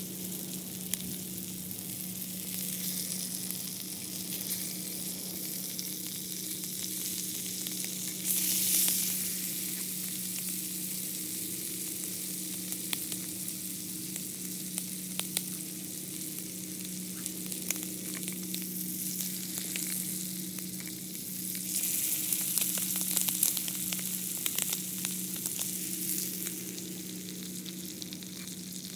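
Todak (needlefish) pieces frying in butter in a small nonstick pan over a solid-fuel camp stove: a steady sizzle with crackling pops. It swells louder about eight seconds in and again from about twenty-two seconds.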